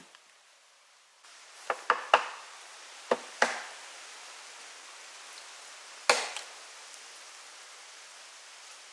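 Hatchet chopping into wood on a chopping block. Six sharp chops come in three groups: three in quick succession, then two, then a single one about six seconds in.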